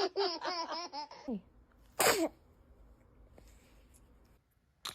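Laughter in quick pulses for about the first second and a half, trailing off in a falling tone, then a single short baby sneeze about two seconds in.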